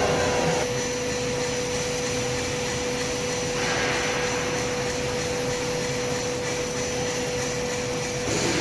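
Stainless steel hammer-type powder grinding mill running steadily: a constant hum with a steady rushing of air blowing through into the cloth collection bag.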